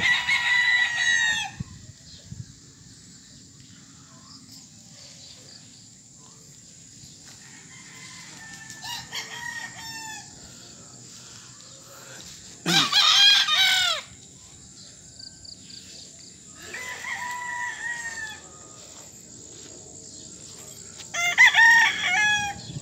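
Gamecock roosters crowing, five crows spaced through, the loudest about 13 seconds in and another loud one near the end. A steady thin high whine runs underneath.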